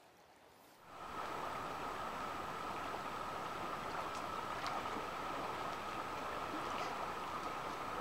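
Steady outdoor rushing noise that starts about a second in, with a faint steady high tone running through it and a few faint ticks.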